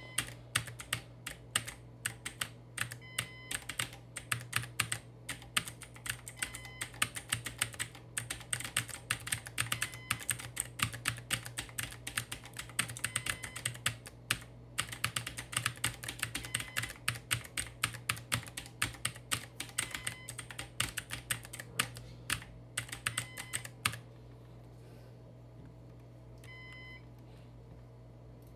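Clacky computer keyboard being typed on rapidly in fast bursts of keystrokes. The typing stops about 24 seconds in, leaving a low hum and a few short beeps.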